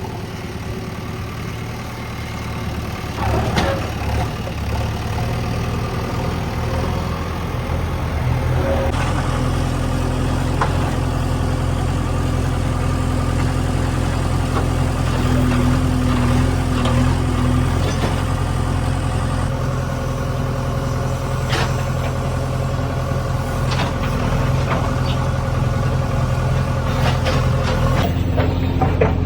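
JCB 3DX backhoe loader's diesel engine running steadily, its note changing and growing a little louder about nine seconds in, with occasional sharp knocks over it.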